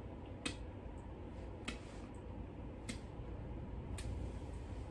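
Four faint, sharp ticks evenly spaced a little over a second apart, like a regular ticking, over a low steady hum.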